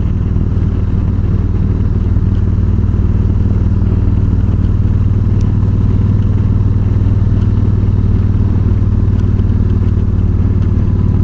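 Yamaha V-Star 1300's V-twin engine running steadily at an even cruising speed while riding, with no revving or gear changes.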